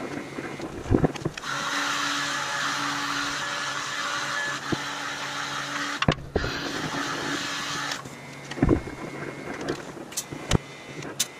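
Electric welding arc on a steel frame rail: a steady hiss that starts about a second and a half in, breaks briefly about six seconds in, resumes and stops about eight seconds in, over the welder's steady hum. A few sharp knocks follow near the end.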